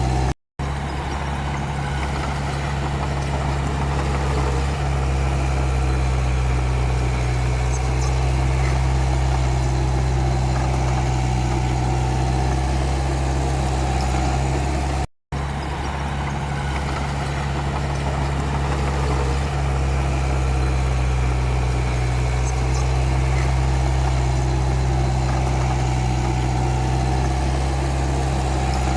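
Komatsu D31P crawler bulldozer's diesel engine running at a steady, low speed with no revving. The sound cuts out for an instant twice, about half a second in and halfway through.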